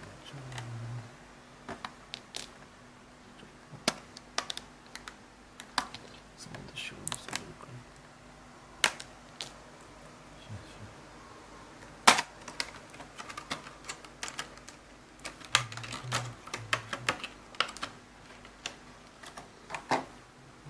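Clear plastic blister packaging being pried apart and pulled off by hand, with irregular sharp clicks and crackles of the plastic and one louder snap about twelve seconds in.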